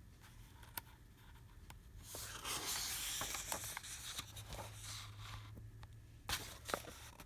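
Paper rustling as a picture book's page is handled and turned, lasting about three and a half seconds, with scattered light clicks and two sharper taps near the end.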